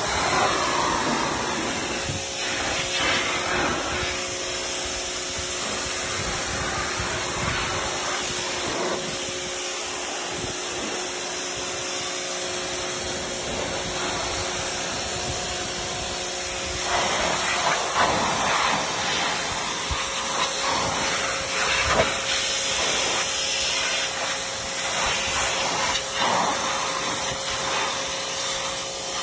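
Paxcess 1800W electric pressure washer running, its water jet spraying with a steady hiss over a motor hum. The spray noise swells and shifts unevenly partway through, as the jet plays over a surface.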